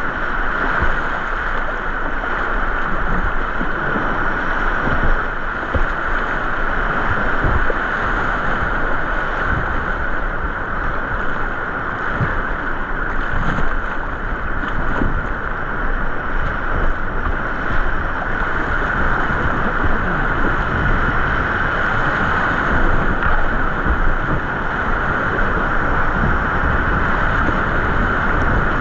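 Loud, steady rush of creek whitewater around a kayak running rapids, with wind buffeting the microphone.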